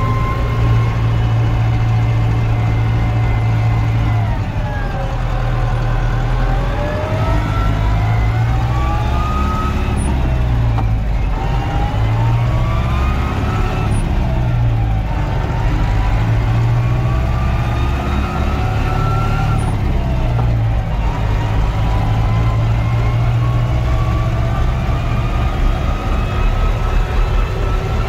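Same Argon 80 tractor's diesel engine running under way. Its pitch drops and then climbs again about four times as it is driven, over a steady low drone.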